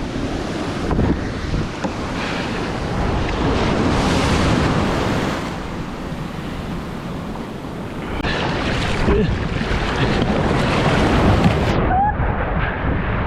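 Wind buffeting the microphone over the wash of breaking surf, swelling and easing in surges.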